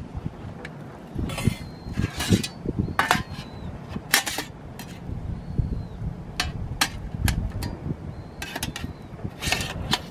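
Thin hinged metal panels clicking and clacking as they are unfolded and handled, in irregular sharp knocks, some with a short metallic ring.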